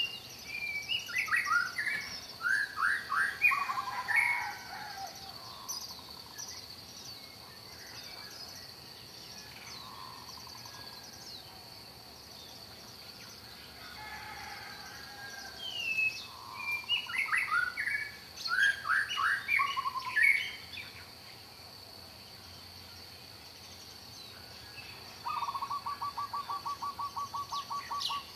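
Songbirds singing: two bursts of quick, descending whistled chirps a quarter of a minute apart, then a rapid, even trill starting near the end. A faint steady high-pitched tone runs underneath.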